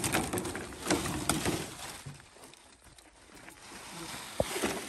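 Rustling and scraping of a green plastic shade net as a cobra is pulled out from under it, with voices early on and one sharp knock near the end.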